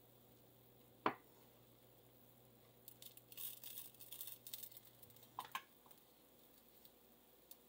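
Spatula working under a pancake in a nonstick frying pan: a sharp click about a second in, then a couple of seconds of faint high crackling as the pancake is lifted, and a lighter click near the end, over quiet room tone.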